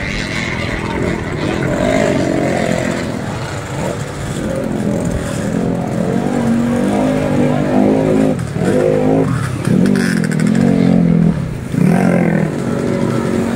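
Several motocross bikes' engines revving hard, their pitch rising and falling again and again over a continuous engine noise, growing louder in the second half.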